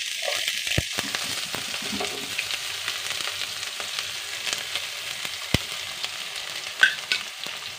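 Hot coconut oil sizzling in a pan with mustard seeds, urad dal and dried red chillies as chopped onion, curry leaves and green chillies are dropped in, with scattered light clicks through the steady hiss.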